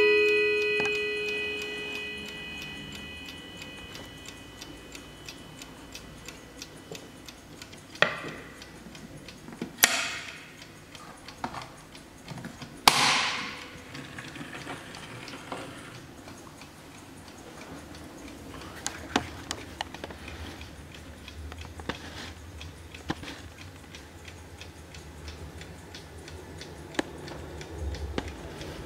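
Hermle mantel clock ticking steadily, with the last notes of its chime rods dying away in the first few seconds. A few louder knocks and brief rubbing noises come around the middle as the wooden case is handled.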